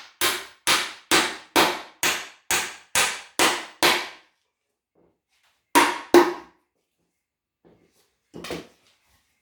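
Hammer driving a nail into a wooden board with steady blows, about two a second, nine in a row. After a pause, two more strikes come close together about six seconds in, and a fainter knock follows near the end.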